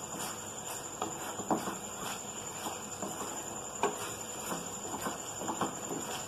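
Wooden spatula stirring and scraping a thick, sticky dal-coconut-jaggery filling around a steel frying pan, with irregular scrapes and light knocks against the pan.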